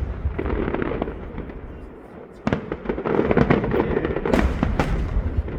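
Aerial fireworks going off in a display: a run of sharp bangs and crackles over a continuous low rumble, easing off for about a second midway, then a dense barrage of bangs.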